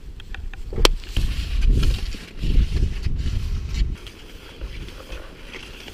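Cross-country skis and poles working on snow as a skier sets off uphill: uneven scuffing strides with a sharp click about a second in and a few lighter clicks later, over a low rumble of wind on the microphone.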